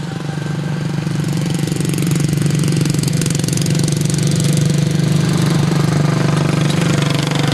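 Racing lawn mower engines running steadily at speed around a dirt oval, getting louder over the first two or three seconds and then holding.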